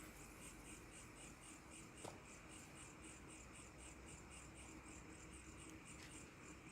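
Faint chirping of night insects, likely crickets, a steady high-pitched pulse about five times a second. A single short click about two seconds in.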